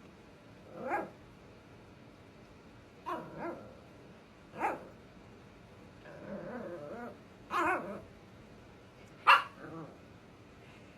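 Scottish Terrier–Chihuahua mix puppy barking in short single barks every second or two, with a low growl about six seconds in. The loudest bark comes near the end. These are play barks and growls aimed at getting another dog to play.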